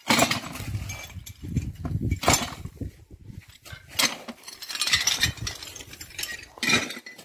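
Broken ceramic tile pieces clinking and knocking as they are picked from a rubble heap and dropped into a plastic bucket, a handful of separate sharp clinks a second or so apart.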